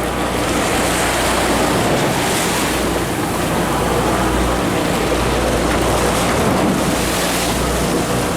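Steady wind and sea noise on the open deck of a fishing boat, with wind buffeting the microphone and a low steady hum underneath.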